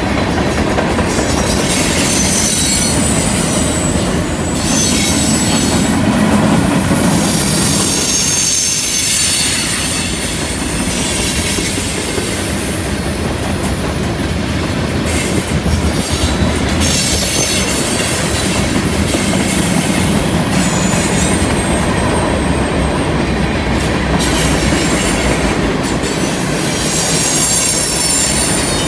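Freight train's tank cars rolling slowly past on a curve, steel wheels rumbling along the rails, with a high wheel squeal that comes and goes as the flanges grind against the curved rail.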